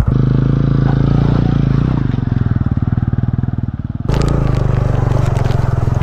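TVS Ronin's 225 cc single-cylinder engine running at a low, steady pitch as the motorcycle is ridden over a stony trail. About four seconds in the sound changes abruptly, and the clatter of stones under the tyres joins the engine.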